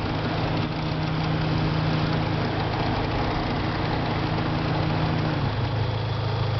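1997 Mitsubishi Eclipse GSX's turbocharged 2.0-litre inline-four idling steadily, its note stepping down to a lower idle about five seconds in. The owner hears an exhaust leak and maybe a vacuum leak somewhere in the engine bay.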